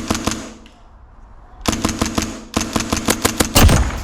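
Airsoft rifles firing in rapid full-auto strings, about eight shots a second, with a gearbox whine under each string: one string at the start, then two more from about halfway. A loud, deep thump comes near the end.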